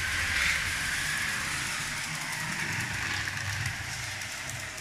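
LEGO 12V train pushed by a 12-volt motor carriage, running steadily along the track: an even whir from the small electric motor and the wheels on the rails.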